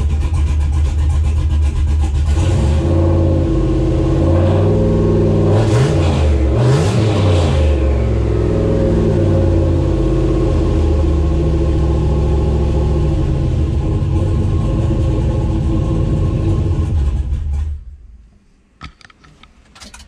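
6.0 L LS V8 running rich but now firing on all eight cylinders after three dead fuel injectors were replaced. Engine speed rises and falls a few seconds in, then settles back to a steady idle. The engine sound stops abruptly near the end.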